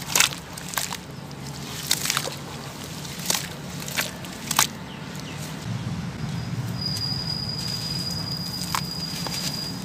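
Hands sloshing and squishing wet sand-cement in a basin of water, with several sharp splashy slaps in the first half, then softer steady squelching. A thin, steady high tone sounds in the last few seconds over a low hum.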